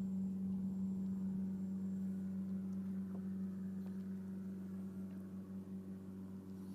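A steady, low-pitched mechanical hum, like a motor or generator running, with a few faint ticks. It eases off slightly toward the end.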